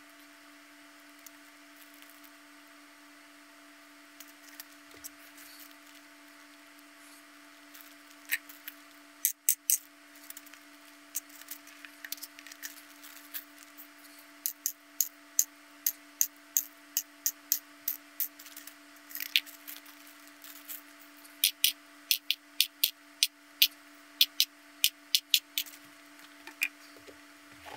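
Small plastic twisty-puzzle kit parts clicking sharply as they are handled and set down, starting sparsely about a third of the way in and then coming about two or three a second, over a steady low hum.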